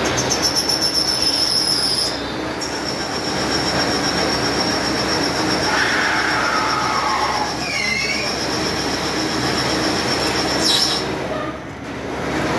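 CNC PVC-pipe threading lathe cutting a blue PVC pipe: a loud continuous machining noise with a high-pitched squeal over it, which stops shortly before the end.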